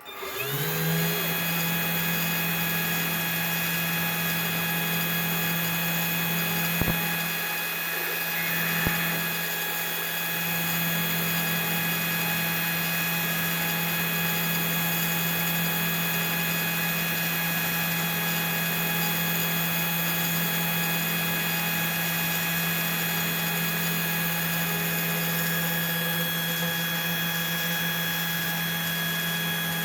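Spindle motor of a CNC 3018 PRO desktop router spinning up in the first second, then running at a steady speed with a steady whine while the machine works through a test routine. Two sharp clicks come partway through.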